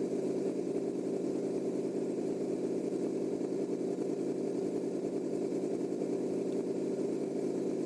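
Chevy Silverado pickup's V8 idling steadily, with its electric radiator fans running.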